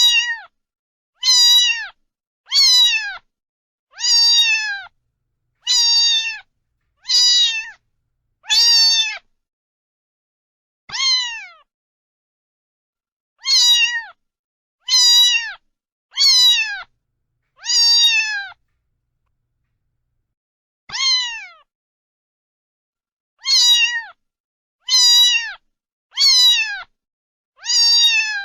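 A cat meowing over and over, about seventeen high, short meows that each fall in pitch, coming in runs of several with brief pauses between the runs.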